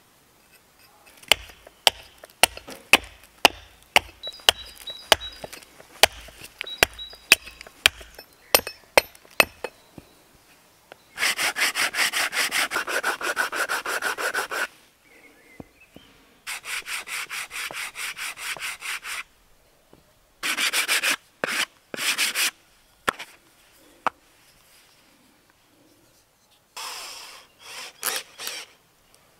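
Hand tools working wood: a run of sharp taps, about two a second, for the first ten seconds, then several long rasping strokes across wood, the longest about three and a half seconds.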